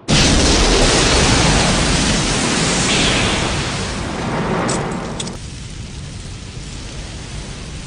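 Anime sound effect of a loud rushing energy blast that starts suddenly, slowly fades, and thins to a low rumble about five and a half seconds in.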